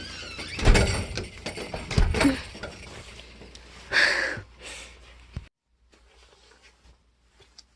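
Wind buffeting the microphone with a low rumble, with two sharp knocks and handling noise; about five and a half seconds in it cuts off suddenly, leaving faint room tone.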